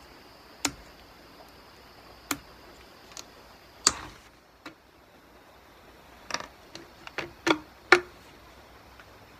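Scattered clicks and light knocks of Stihl MS390 chainsaw parts and small tools being handled and set down on a workbench during disassembly: about a dozen separate taps, with a cluster of them in the last few seconds.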